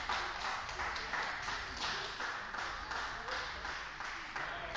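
Table tennis balls clicking off bats and tables in quick succession, a few ticks a second, echoing in a large sports hall.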